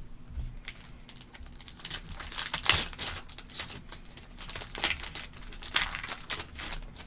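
Wrapper of a Panini Optic basketball hobby pack crinkling and tearing as the pack is opened by hand, in several crackly bursts, the loudest a little under halfway through and again in the second half.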